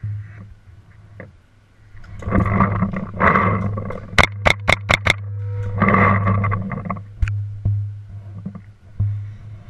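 Paintball marker firing five quick shots in about a second, between two loud harsh bursts of noise.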